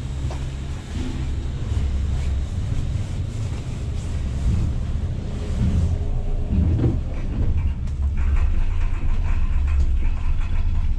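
Steady low rumble inside a moving Doppelmayr ten-seat detachable gondola cabin as it travels along the cable. A higher steady whine joins about eight seconds in.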